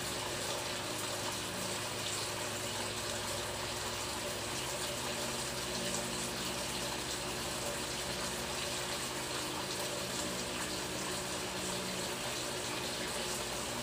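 Water running steadily, with a faint low hum underneath.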